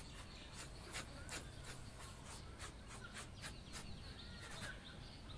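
Pencil scratching on paper, a quick, uneven run of short strokes as a drawing is sketched, faint.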